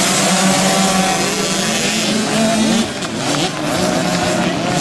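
A pack of small two-stroke 50cc and 65cc motocross bike engines revving hard together as the riders launch off the start line, their pitches rising and falling over each other.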